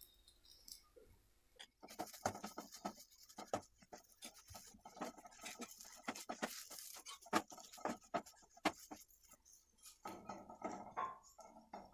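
Wooden spatula scraping and knocking against a non-stick frying pan as mashed potato filling is stirred and pressed, in irregular scrapes and taps starting about two seconds in.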